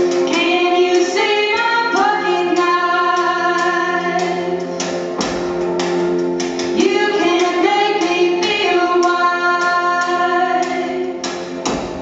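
Two women's voices singing together in harmony, live, with long held notes.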